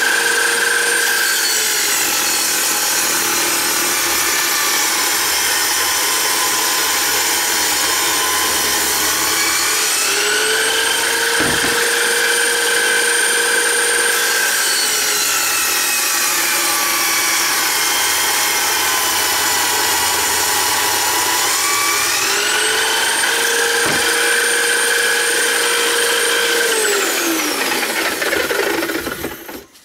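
Electric drill spinning a circular saw blade as a homemade table saw, cutting through a plywood board twice. The motor's whine drops in pitch while the blade is in the wood and climbs back when it runs free, then winds down as the motor is switched off near the end.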